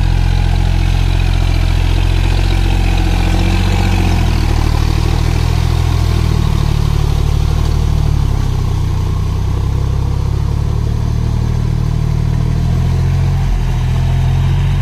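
John Deere tractor's diesel engine running steadily under load as it drags a disc harrow through paddy mud on cage wheels, a little quieter from about eight seconds in.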